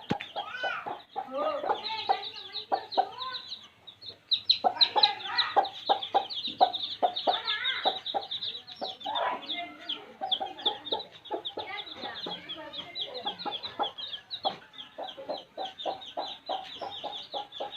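Many baby chicks peeping rapidly and continuously, high-pitched, with a hen clucking in quick low runs beneath them; a brief lull about four seconds in.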